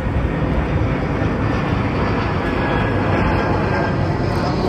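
Loud, steady rumbling rush of noise from a vehicle in motion, with its weight in the deep low end and no distinct knocks or tones.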